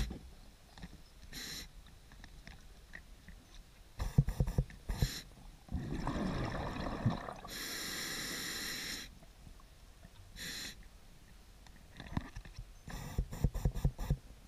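A diver breathing underwater through a scuba regulator: a long hissing inhale in the middle, with bursts of bubbling exhaled air crackling out about four seconds in and again near the end.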